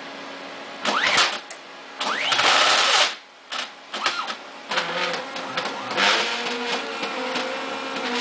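NEMA 23 stepper motors on Gecko stepper drives running under CNC control: whining bursts that glide up and down in pitch as the motors speed up and slow down, starting about a second in, with a short lull near three seconds, then steadier tones with a run of small clicks.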